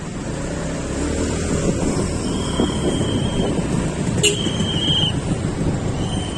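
Wind rushing over the microphone with road and traffic noise while riding on the road. Three short high-pitched beeps sound over it, with a sharp click just before the second.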